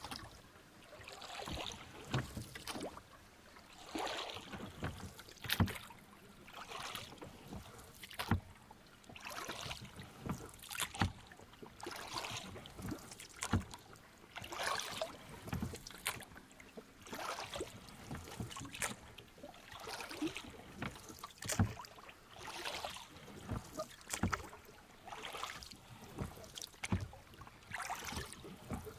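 Rowboat being rowed on calm water: the oars dip and pull through the water with a splash and swirl on each stroke, and there are sharp knocks of the oars in the oarlocks, about one stroke every one to two seconds.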